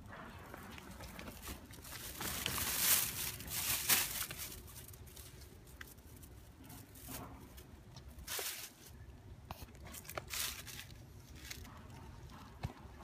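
Plastic shopping bag crinkling and rustling in several bursts, loudest a few seconds in, with smaller rustles later.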